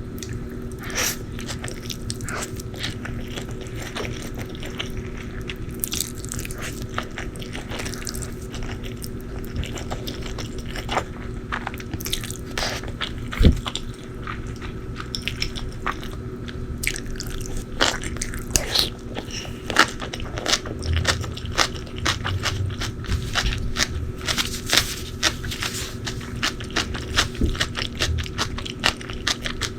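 Close-miked eating: crisp crunching bites and chewing, irregular and getting busier over the second half, with one louder knock about halfway through and a steady low hum underneath.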